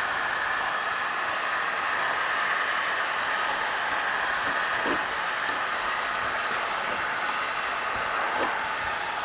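Heat gun blowing steadily, softening the foam adhesive that holds a van roof support beam to the roof. A couple of faint knocks come about halfway through and near the end.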